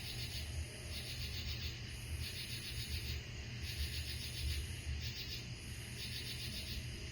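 Night insects singing in chorus: short bursts of rapid high buzzing pulses, about one a second, over a low steady hum. The speaker takes the singers for cicadas.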